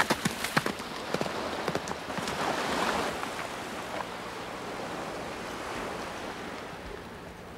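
A galloping horse's hooves splashing through shallow seawater at the edge of the surf, in quick strikes for about the first second. This gives way to a steady hiss of sea and surf that swells briefly and then settles.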